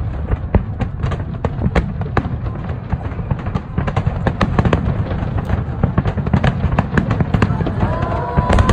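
A dense barrage of aerial firework shells bursting: continuous deep booms with many sharp bangs and crackling pops packed closely together.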